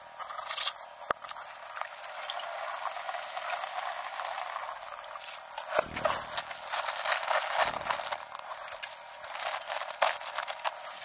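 Kitchen faucet running as lettuce is rinsed under it: a steady stream of water, then uneven splashing and rustling as the wet leaves are handled. A single click comes about a second in.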